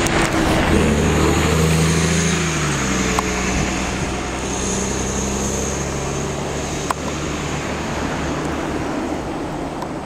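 Nova Bus LFS city bus pulling away: its diesel engine speeds up, rising in pitch over the first few seconds, then runs steady and slowly fades as the bus drives off.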